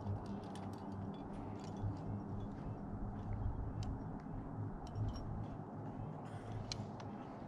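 Low, steady wind rumble on the microphone, with scattered small clicks and rustles of climbing gear and rope being handled at the belay.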